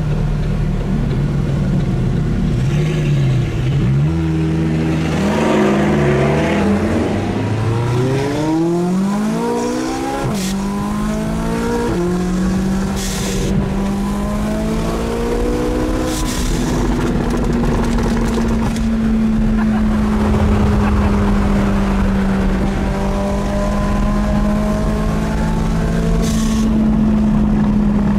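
Supercar engine accelerating through several quick upshifts, its pitch climbing and dropping back about every two seconds, then running on at a nearly steady pitch.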